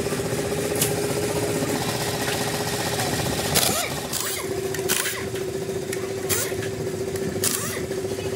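A machine running with a steady hum, with about six sharp knocks or clicks at uneven intervals over it.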